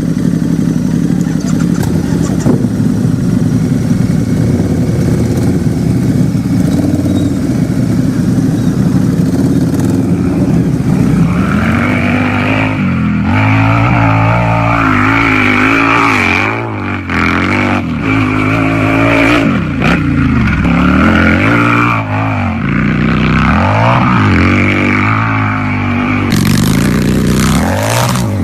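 Harley-Davidson V-twin motorcycle engine running loudly at a steady low speed for about ten seconds, then revved over and over, its pitch rising and falling several times.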